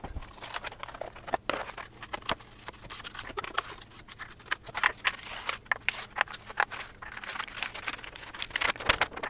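Irregular clicks, crinkles and scrapes of kitchen handling: an aluminium foil pan lid being pressed and crinkled, then a spatula scraping and stirring thick macaroni and cheese in a glass baking dish.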